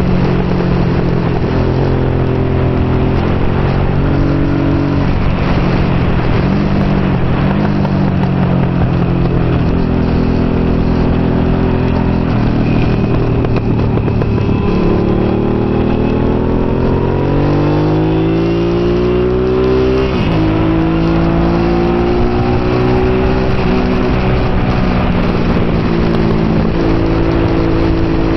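Honda NT650 Hawk GT's V-twin engine heard onboard at racing speed, over a constant wind rush. The engine note shifts step by step through the first half, then climbs steadily for several seconds past the middle and drops sharply at a gear change.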